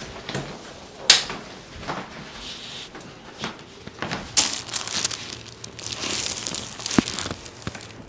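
Rustling and crinkling of a person shifting on a chiropractic treatment table while turning onto their back, with a sharp click about a second in and another near the end.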